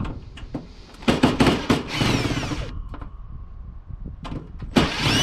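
Power drill running in two bursts while screws are backed out of a water cooler's casing: a longer run of about a second and a half with a falling whine, then a short second burst near the end.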